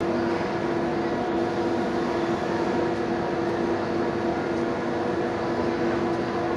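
A steady, unchanging hum: one constant low tone with fainter overtones over an even hiss.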